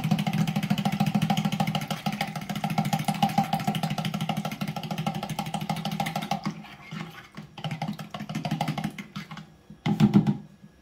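A fork beating eggs into milk in a plastic jug: rapid, rhythmic clicking strokes against the jug. They go strong for about six seconds, then come in shorter bursts, with a last loud burst near the end.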